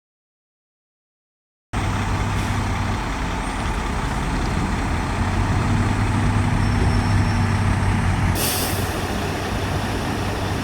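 Heavy diesel earthmoving machinery running steadily, cutting in abruptly about two seconds in. A short hiss of air about eight seconds in, typical of a truck's air brakes.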